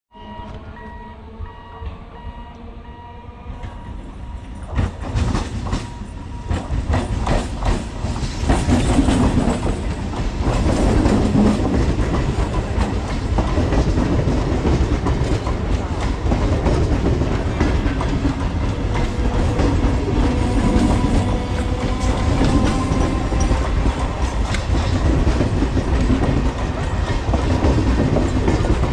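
Conventional electric multiple unit train running past at close range, growing louder over the first few seconds. Its wheels clatter over the rail joints in a regular rhythm above a steady rumble.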